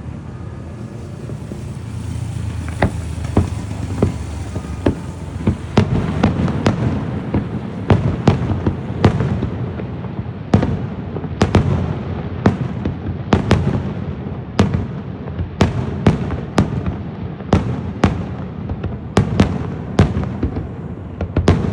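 Aerial fireworks display: a continuous low rumble of shells with sharp bangs that come more often from about six seconds in, settling to roughly two reports a second.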